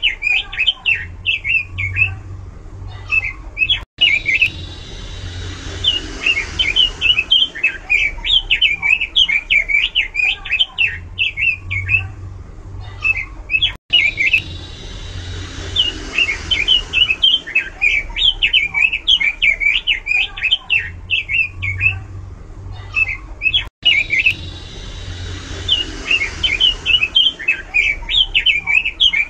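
Pekin robin (red-billed leiothrix) singing loudly and continuously, in rapid runs of high, varied chirping notes. The same stretch of song repeats about every ten seconds, each time after a brief cut to silence.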